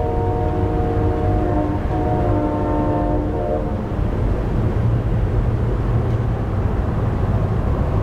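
Synthesized recreation of a distant Leslie S4T four-chime train horn, with reverb. One blast ends about two seconds in and a second blast follows at once, stopping a couple of seconds later. A steady low rumble of background noise runs underneath.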